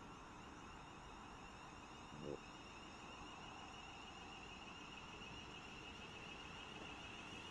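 Siemens Desiro Class 350 electric multiple unit coasting slowly into the platform, a faint steady high whine growing louder as it nears, with a brief low knock about two seconds in.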